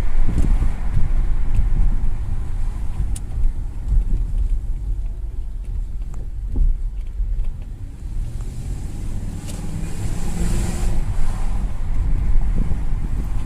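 A 2001 Audi A8L driving, with steady low road rumble and scattered sharp clicks at irregular moments, the clicky noise the car makes over bumps. A pitched engine note rises and falls about two-thirds of the way through.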